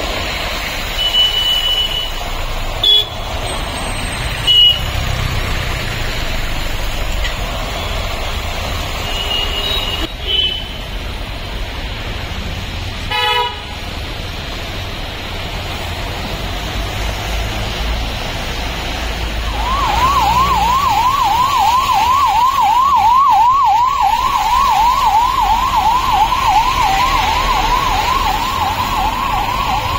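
Ambulance siren wailing in a quick, even up-and-down sweep, starting about two-thirds of the way in and running on, over steady traffic and tyres ploughing through floodwater. A few short high beeps sound in the first part.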